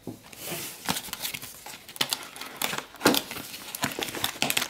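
Hands rummaging in a cardboard box of accessories: an irregular run of small knocks and clicks, with plastic packaging rustling.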